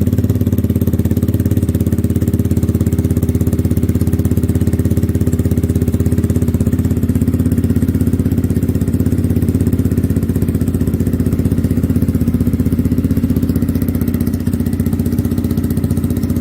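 Motorcycle engine idling steadily through an aftermarket slip-on muffler, just after being started. The exhaust note is pretty loud, with an even low pulse and no revving.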